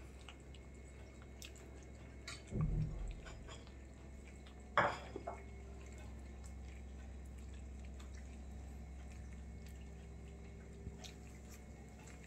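Cats eating from a plate on the floor: faint chewing and small scattered clicks. A low thump comes about two and a half seconds in, and a short sharp click near five seconds.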